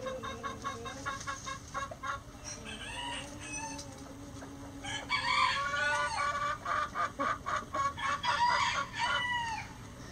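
A flock of chickens: hens clucking in quick repeated notes, with roosters crowing. The crowing is loudest from about five seconds in.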